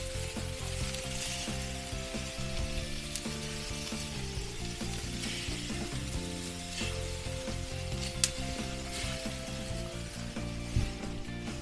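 T-bone steaks sizzling on the grates of a gas grill, a steady hiss, with a single sharp click about eight seconds in.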